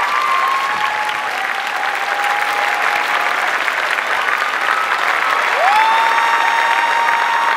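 Studio audience applauding steadily. About five and a half seconds in, a held tone rises in pitch over the clapping and then holds.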